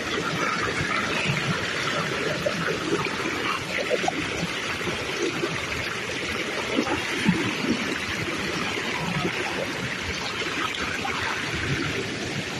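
River water running and gurgling steadily, with small irregular splashes throughout.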